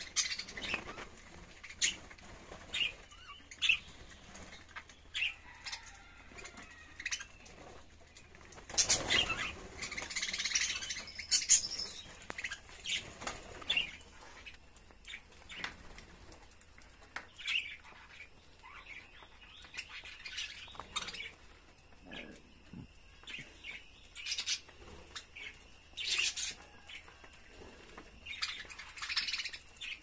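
A flock of budgerigars chirping in short, scattered calls, with wing flapping. The loudest, busiest stretch comes about nine to eleven seconds in.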